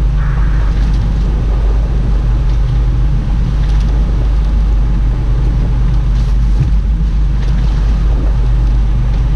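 A boat's engine running steadily with a low, even hum, with water and wind noise over it.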